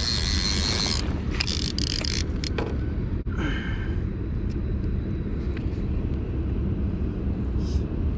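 Clatter and rustle as a baitcasting fishing rod is laid down on a stony bank, several sharp knocks in the first two or three seconds, then a steady low rumble.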